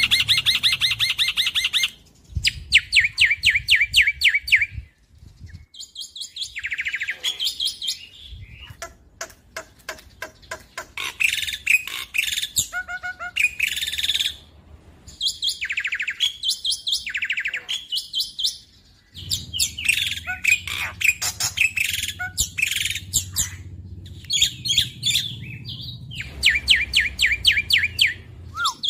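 Black-winged myna singing a loud, chattering song: phrases of very rapid rattling trills mixed with short whistled notes, coming in bursts with brief pauses between them.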